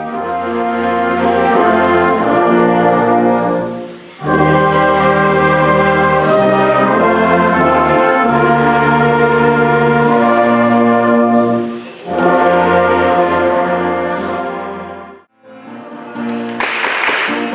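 Brass band including trombones playing slow, held chords, in three phrases with brief breaks between them. Near the end the chords stop and a brighter passage begins.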